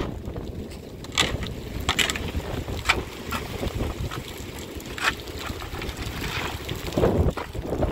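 A metal shovel scraping and knocking against stones and mud in several separate strokes, over a steady low rumble of wind on the microphone.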